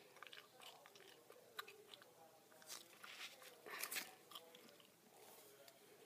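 Faint crinkling and rustling of tape strips being handled and pressed flat on a cutting mat, with a few small clicks; the crinkles are louder twice, near three and four seconds in.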